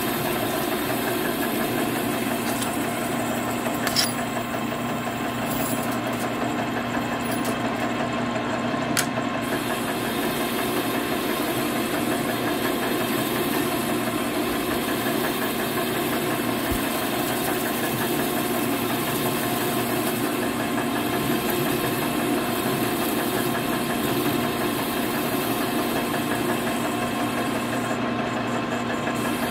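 Metal lathe running steadily while a cutting tool turns a spinning metal hub, curling off chips, with a steady hum and whine from the machine. Two sharp ticks come about four and nine seconds in.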